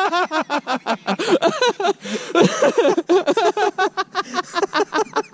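Men laughing in quick, repeated voice pulses, several a second.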